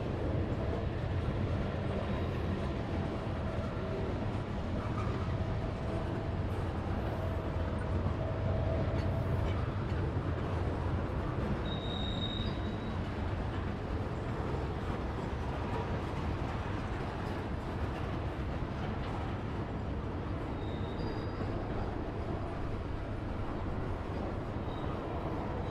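Freight train of tank cars rolling past: a steady rumble of wheels on rail, with brief high wheel squeals about halfway through and again near the end.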